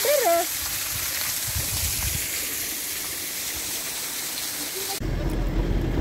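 Water falling and splashing in a small waterfall, an even rushing hiss. About five seconds in it cuts abruptly to a low vehicle-engine rumble.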